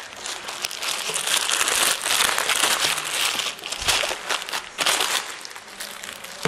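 Plastic packaging bags crinkling and rustling, in uneven spurts, as the Thai pads are unwrapped and pulled out by hand.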